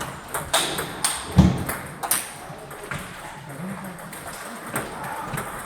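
Table tennis ball clicking off paddles and the table in a rally, sharp irregular knocks, with one heavier thump about a second and a half in.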